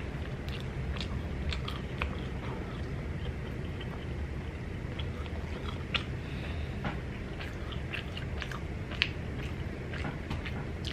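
A man biting and chewing a mouthful of Yorkshire pudding soaked in gravy, close to the microphone: irregular small mouth clicks and smacks over a steady low background hum.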